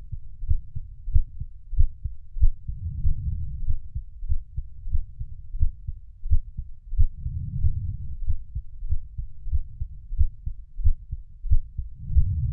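Heartbeat sounds: a steady rhythm of low, dull thumps, with a low background that swells every four to five seconds.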